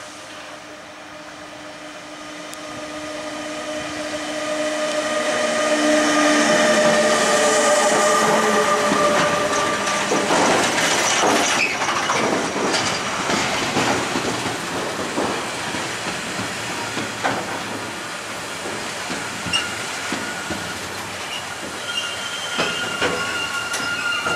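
A freight train of silo wagons hauled by an electric locomotive passes close by. The locomotive's steady whine grows louder as it approaches and stops about ten seconds in. The wagons then roll past with wheel clatter over rail joints, and a high wheel squeal sets in near the end.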